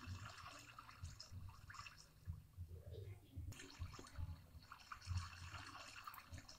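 Very faint bubbling and trickling water, almost silent, as the boat goes under the surface.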